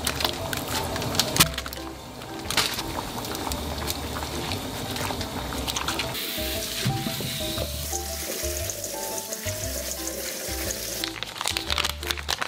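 Background music with a pulsing bass beat and a short-note melody, over kitchen sounds. Sharp clicks and knocks come in the first few seconds and again near the end. An even sizzling hiss runs from about six seconds in to about eleven.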